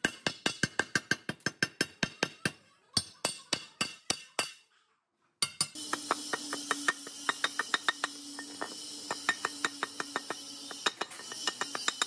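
Hammer tapping a steel chisel to chip caked rust and dirt off old iron parts: rapid, even metallic clinks, several a second. The tapping breaks off briefly about four and a half seconds in, then goes on at a slightly slower pace over a steady hiss.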